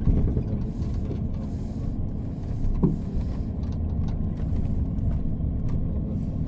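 Steady low rumble of engine and road noise inside the cabin of a VDL Futura coach on the move. A brief higher-pitched sound stands out about three seconds in.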